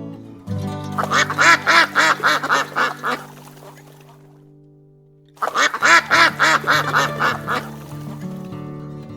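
A duck quacking in two rapid runs of about eight quacks each, with a pause between them, over background music.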